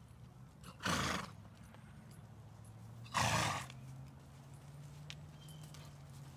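A horse snorts twice, two short loud blows about two seconds apart, over faint hoofbeats on arena dirt.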